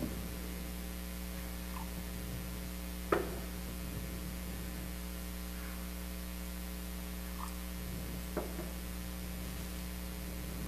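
Steady electrical mains hum from the sound system. Over it come a few faint clinks and knocks, the sharpest about three seconds in, as the altar vessels are handled at the side table.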